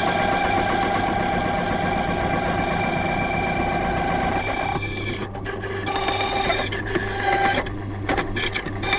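Silca Lancer key-cutting machine running with a steady motor whine and hum as its cutter works a warded key blank; the sound breaks off briefly several times in the second half.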